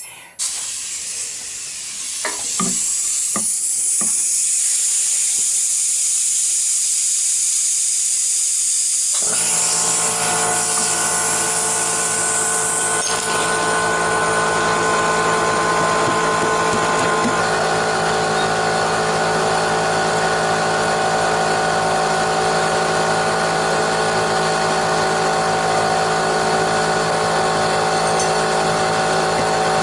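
A loud steady hiss, joined about nine seconds in by a motor running steadily with a hum of several held tones.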